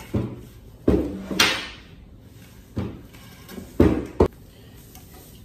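Wooden table legs knocking and thumping on a hard floor as jute rope is pulled tight and wound around them, about six knocks in all. One, about a second and a half in, trails into a brief rasping scrape.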